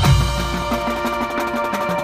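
Marching band music: held brass and wind chords over a drum line's steady percussion.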